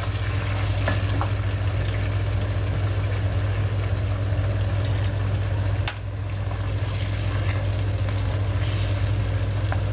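Chilli paneer sauce simmering in a nonstick kadai as arrowroot slurry is stirred into it, with a few light clicks of the spatula, over a steady low hum.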